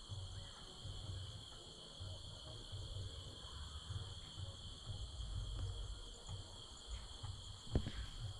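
Crickets chirping in a steady night chorus, with a low rumble underneath and a single sharp click near the end.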